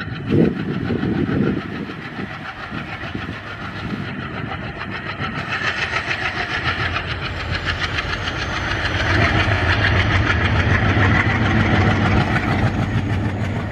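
WDM-3 series diesel locomotive passing with a passenger train: the engine runs with a steady rumble and the wheels clatter rhythmically on the rails. It grows louder in the second half as the train comes closer.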